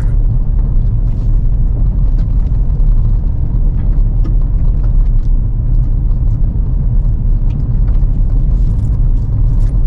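Steady low rumble of a 2024 Toyota Tacoma's engine and road noise heard inside the cab while cruising in sixth gear.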